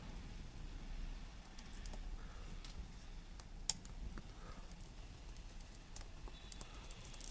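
Scattered light clicks and taps of small parts and tools being handled, with one sharper click about halfway through, over a low hum.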